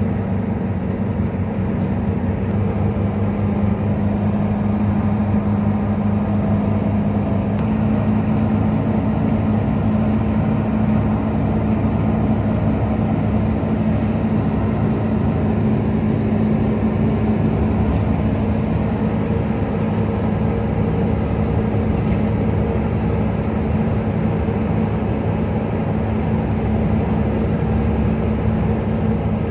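Steady drone of a moving vehicle's engine and road noise, heard from inside the cabin; the engine's hum steps up slightly in pitch about two seconds in and then holds steady.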